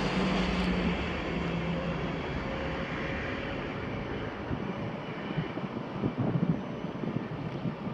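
A train moving away along the platform: its rumble and a steady low hum fade, the hum dying out about two seconds in.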